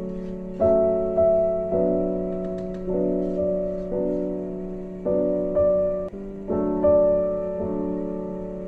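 Background piano music: gentle chords struck one after another, each fading before the next.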